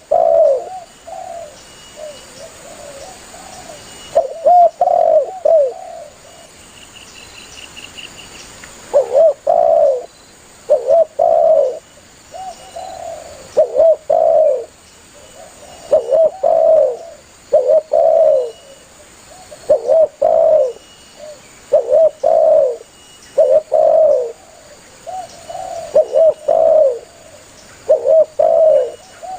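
Spotted dove cooing over and over in low, hollow notes grouped in short phrases. After a pause of about three seconds the phrases come in a steady run, one every second or two.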